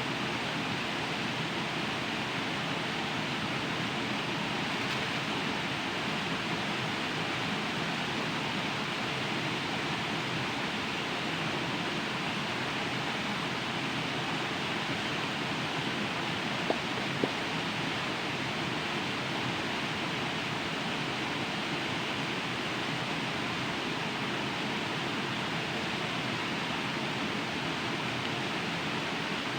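Steady rush of a waterfall, an even hiss of falling water that does not change. Two short sharp clicks stand out about half a second apart, a little past halfway through.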